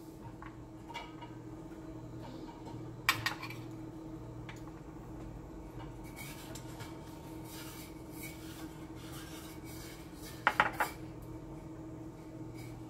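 A metal spoon scraping and clinking against a plate and a glass bowl as chopped onion is scooped into beaten egg, with a sharp clink about three seconds in and a quick cluster of clinks near the end, over a steady low hum.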